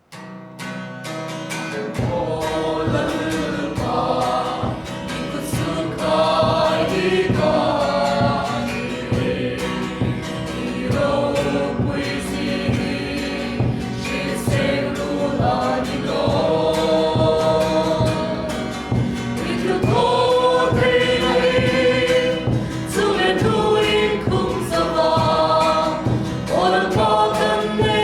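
Worship team singing a gospel hymn together with band accompaniment. It starts out of silence, and a bass line and a steady beat come in about two seconds in.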